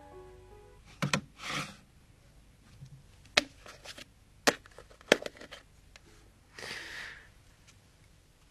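A few sharp, separate wooden clicks and knocks of things being handled in a wooden drawer, with two soft rustles, one about a second and a half in and one near the end. Soft music fades out in the first moment.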